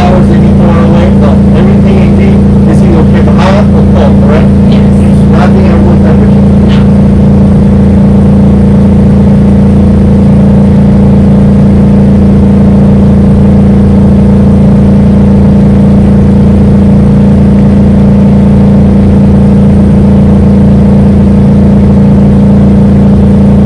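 Generator running with a loud, steady hum that does not change.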